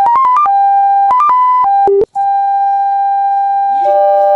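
Simple electronic beeping melody: quick notes jumping between a few pitches, a short break about two seconds in, then one long held beep, joined by a second lower beep near the end.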